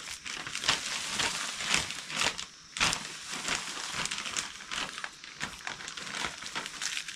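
Dry, half-rotted leaf litter crackling and rustling as it is sorted through by hand, mixed with the crinkle of plastic grow bags being handled. There is a brief lull about two and a half seconds in.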